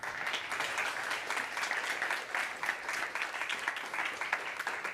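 Small audience applauding: dense, steady hand clapping that starts abruptly and carries on throughout.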